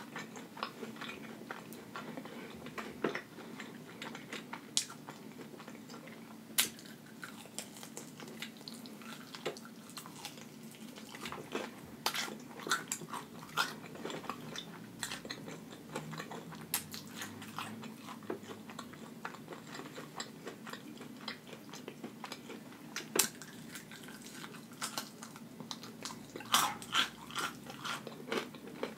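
Close-up chewing and biting of breaded fried chicken wings, with short crunches and mouth clicks scattered throughout and a louder cluster of them near the end.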